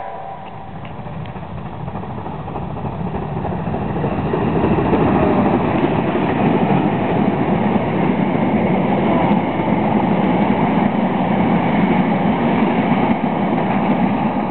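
New Zealand Railways Ka-class 4-8-4 steam locomotive Ka 942 and its train passing: the rumble of locomotive and carriages builds over the first five seconds, stays loud, and starts to fade near the end.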